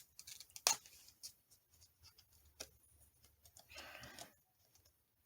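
Faint handling sounds of paper craft work: a few light taps and clicks, and about four seconds in a brief soft scrubbing rustle against paper.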